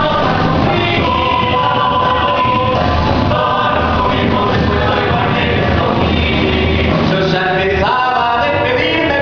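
A song with singing voices over a full band accompaniment, playing continuously at a steady loud level.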